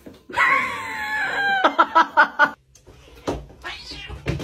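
A cat yowling: one long cry that falls in pitch, then a quick run of four or five short sharp cries.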